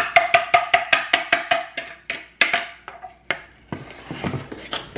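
A kitchen utensil knocking quickly against a wooden mixing bowl as banana muffin batter is mixed, about five or six knocks a second for the first two seconds, then a few separate knocks.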